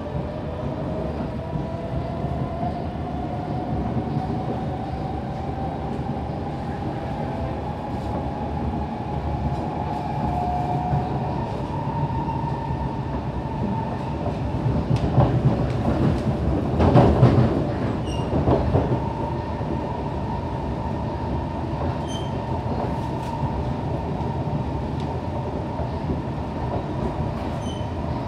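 Siemens C651 MRT train heard from inside the car as it accelerates: the GTO-VVVF traction inverter and motors whine, rising in pitch over the first dozen seconds and then holding a steady tone. Under the whine runs a constant rumble of the wheels on the rails, which grows louder for a few seconds just past the middle.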